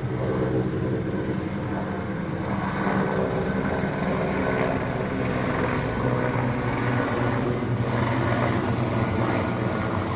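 Large helicopter with a six-bladed main rotor flying overhead: a steady low drone of rotor and turbine that holds an even level throughout.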